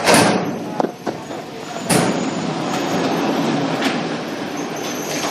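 Cellulose cooling-pad making machine running with a steady mechanical clatter, with two louder bursts of noise, one at the start and one about two seconds in, and a few sharp clicks.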